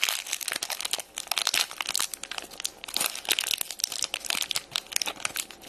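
Thin crinkly plastic wrapper being crumpled and pulled open by hand, a dense, continuous run of crackles.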